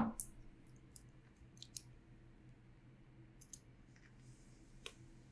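A few faint, scattered small clicks, about half a dozen spread over several seconds, from hands working a split keyboard half and computer during firmware flashing.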